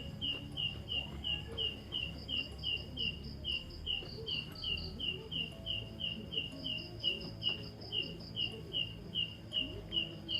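An unidentified night animal in the trees calling without pause: a short, slightly falling high note repeated about three times a second in an even rhythm, with a fainter higher note riding above it at times.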